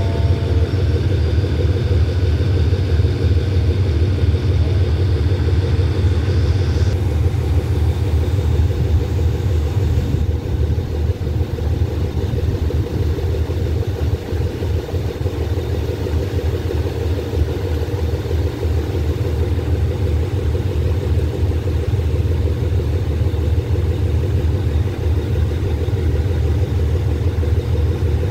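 GEK-class diesel-electric locomotive idling steadily, a deep even engine rumble.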